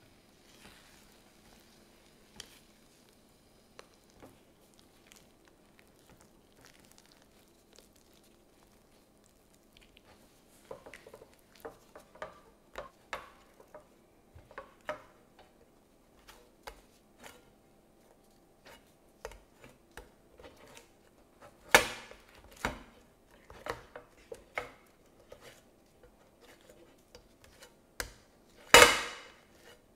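Silicone spatula stirring and folding thick, sticky milk mochi dough in a nonstick frying pan: irregular knocks and scrapes against the pan. They are faint and sparse at first and grow busier about a third of the way in, with two loud knocks, one about two-thirds through and one near the end.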